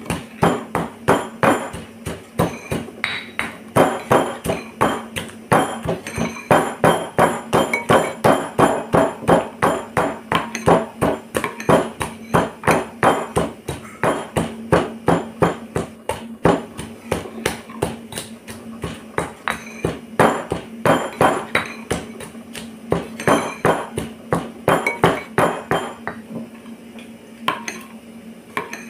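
Granite pestle pounding red chilies in a granite mortar: a steady run of stone-on-stone knocks, about three a second, that stops a couple of seconds before the end.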